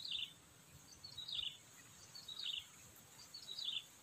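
A bird repeating a short, falling call about every second and a quarter, four times, over a faint steady high hiss.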